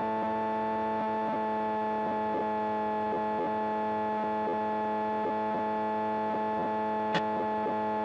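Steady, even hum of the Piper Sport's Rotax 912 engine and propeller at cruise power, about 2,350 rpm, with a faint regular pulsing. A single click comes about seven seconds in.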